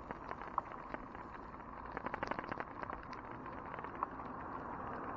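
Riding noise from a camera on a moving bicycle: a steady rush of tyre and road noise with frequent irregular light clicks and rattles.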